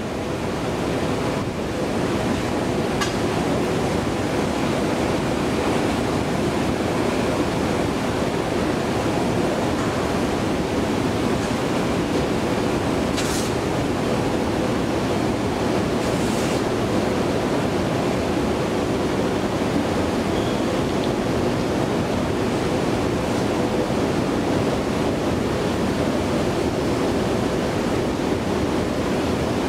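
Steady rumbling whir of a long metro escalator running while being ridden, one of the old 1974 Hansa Fahrtreppen units still in service, with a faint even hum and two brief ticks about midway.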